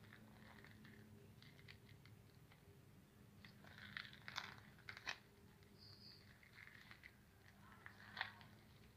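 Near silence with a faint steady hum and scattered soft crunching and rustling, loudest in a cluster about four to five seconds in and in one crackle about eight seconds in.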